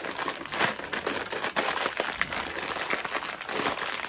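A foil-lined plastic popcorn bag crinkling steadily as it is handled and opened, with many small crackles.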